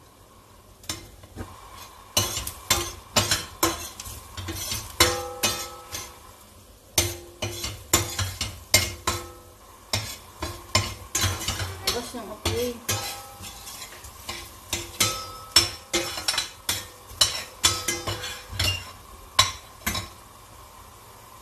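Metal spatula scraping and clicking against a metal frying pan in quick, irregular strokes as minced garlic is stirred in hot oil, with a sizzle beneath. The strokes start about a second in and die away near the end.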